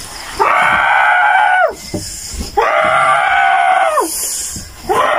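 A woman screaming: three long, high-pitched screams, each about a second long and trailing off downward in pitch, the third starting near the end.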